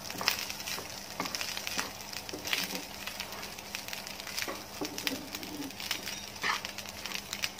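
Rice stir-frying in a frying pan with a low sizzle, turned over by a wooden spatula that scrapes and knocks against the pan at irregular moments.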